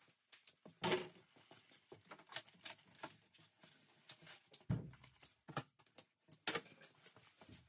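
Irregular clicks, knocks and clatter of hand work on plumbing as old piping and equipment are taken apart, with a few sharper knocks and a dull thud about five seconds in.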